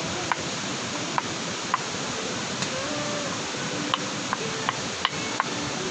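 Kitchen knife chopping garlic on a wooden cutting board: sharp, irregular taps, roughly two a second, over a steady rushing noise.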